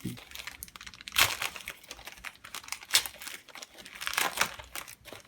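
Paper wrapping, shopping-bag paper, being crumpled and pulled off a package by hand: a dense crackling and crinkling, with louder surges about a second in, at three seconds and around four seconds.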